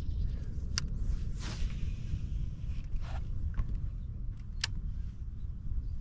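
Low, steady wind rumble on the microphone, with a few sharp clicks scattered through it.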